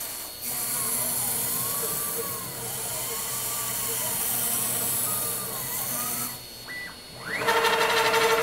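CNC router cutting circles in pink foam: a steady high hiss from the spindle, with stepper motors whining in pitches that rise and fall as the axes trace each curve. Near the end a louder, steady stepper whine comes in as the machine moves at constant speed.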